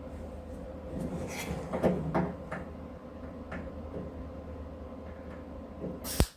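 A few scattered knocks and clanks, like metal parts and tools being handled, over a steady low hum, with a sharp louder knock near the end.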